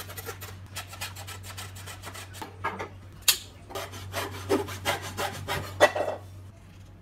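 Hand hacksaw cutting through a thin wooden strip with quick back-and-forth rasping strokes, with a couple of sharper knocks along the way. The strokes stop about six and a half seconds in.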